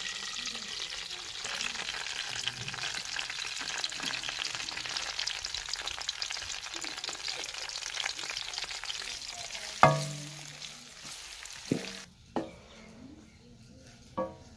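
Sliced onions sizzling and crackling in hot oil in an aluminium karahi, with a loud metallic clang on the pan about ten seconds in. Near the end the sizzling drops away, leaving a few light knocks against the pan.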